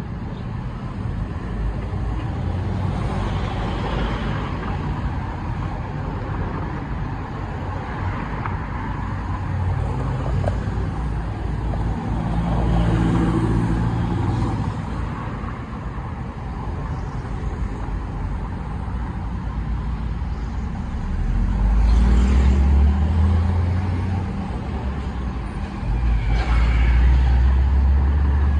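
Steady road traffic of cars, pickups and motorbikes driving past on a multi-lane street, with louder vehicles going by about halfway through and twice near the end.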